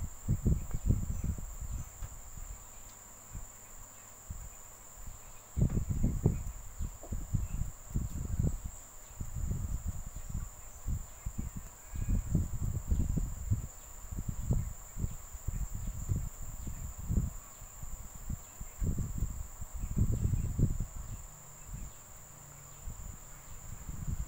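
Muffled rustling and bumping of hands working yarn and a crochet piece with a hook close to the microphone, coming in irregular bursts every second or two. Under it runs a steady high-pitched whine.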